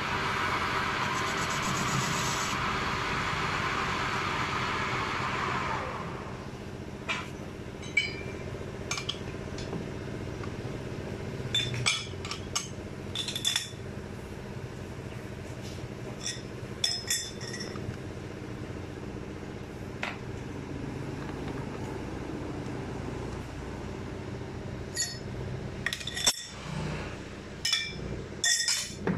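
Metal lathe cutting a steel bushing: a loud, even cutting hiss over the machine's steady hum, which stops about six seconds in. After that the hum carries on, with scattered sharp metallic clinks as the part is handled and adjusted in the four-jaw chuck.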